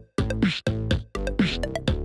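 Electronic background music with a steady beat, about two beats a second.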